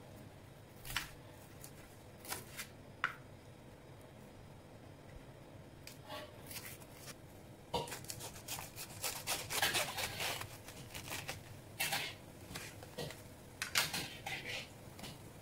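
Kitchen knife on a plastic cutting board: a few sharp taps as bok choy is chopped, then, about eight seconds in, a long rasping, crackling cut through a half cabbage still in its plastic wrap, followed by scattered knocks and rustles.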